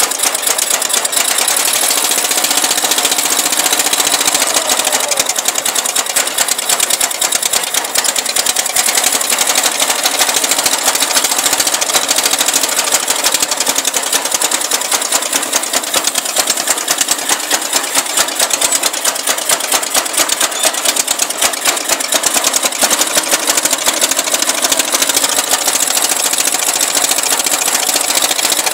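12.5 hp Craftsman engine on a Murray riding mower running steadily while the mower is driven, its exhaust a fast, even chatter of firing pulses.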